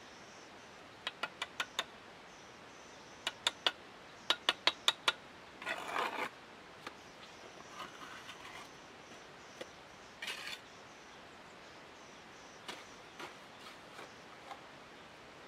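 Bricklayer's trowel tapping red clay bricks down into fresh mortar in three quick runs of sharp taps, about five a second, in the first few seconds. Short scrapes of the trowel through mortar follow.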